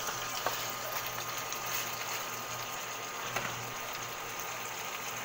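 Chicken pieces sizzling in a stainless steel pot on an induction cooker: a steady hiss, with a few light knocks scattered through it.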